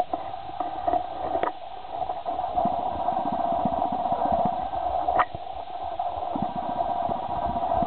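Wind buffeting the camera's microphone in uneven low gusts over a steady mid-pitched hum, with a sharp click about a second and a half in and another about five seconds in.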